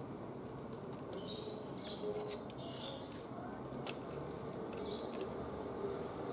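A few small sharp clicks from a micro SD card being pushed into a plastic security camera's card slot. Faint bird chirps sound in the background.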